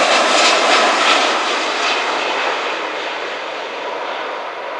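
Twin-engine jet airliner passing low overhead, a broad engine roar that slowly fades as it moves away.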